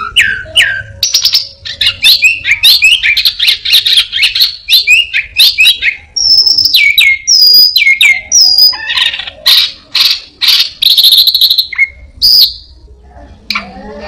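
A caged anis binbin thrush singing loudly in a fast, varied medley of chirps, trills and sharp downslurred whistles, the borrowed calls of other birds that it mimics. A lower-pitched call starts just before the end.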